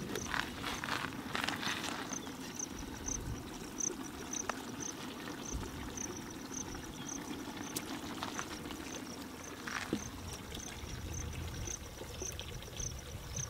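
A large steel pot of fish curry bubbling as it simmers, with soft splashes as fried pomfret pieces are slid into it by hand. An insect chirps steadily in the background, about twice a second.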